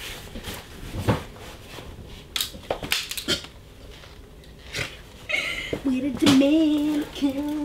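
A few short squirts from a trigger spray bottle, with shoes and a cloth scuffing over a tile floor. Near the end a man's voice comes in with long, held, sing-song tones and no words.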